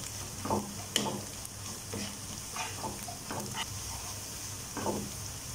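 Onions and ginger-garlic paste frying in oil in a non-stick kadai, with a steady sizzle. A plastic spatula scrapes and taps the pan in short irregular strokes as it stirs.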